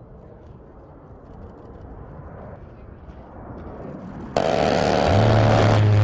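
An A-10 Thunderbolt II's jet engines grow slowly louder as it approaches. About four seconds in, a sudden very loud ripping burst of fire from its GAU-8 Avenger 30 mm Gatling cannon begins, the gun's BRRRT settling into a low steady buzz for the last second.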